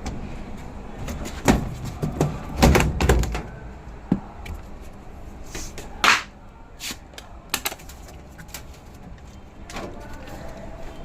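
Irregular knocks and clattering, with the loudest cluster between about one and a half and three and a half seconds in, a couple of single sharp knocks later, and a few lighter clicks near the end.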